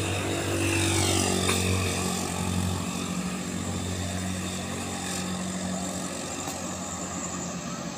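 Diesel truck engines pulling a heavy load up a steep grade, a steady low drone throughout.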